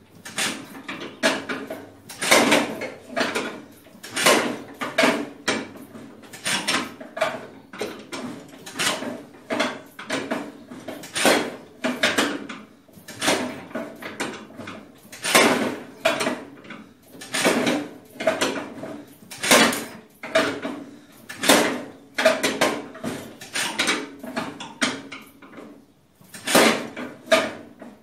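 Farmall Super A engine being cranked on its starter for a cold start with two turns of choke, a rhythmic clattering at about one to two pulses a second. It breaks off briefly about two seconds before the end and starts again.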